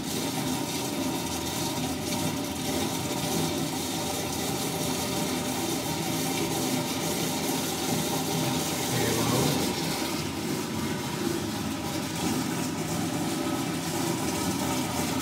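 Commercial flush-valve toilet flushing: a loud, steady rush and hiss of water.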